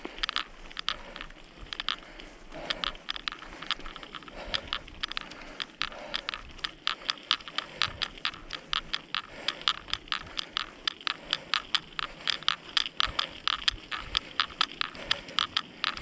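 Footsteps crunching steadily on a mountain trail: a quick, even run of crisp steps that grows louder and faster about halfway through.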